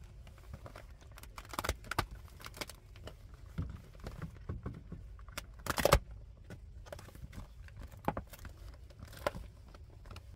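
A collapsible camping sink being unfolded by hand: its clear vinyl basin crinkles and its folding frame clicks and rattles, with a louder clatter a little past halfway.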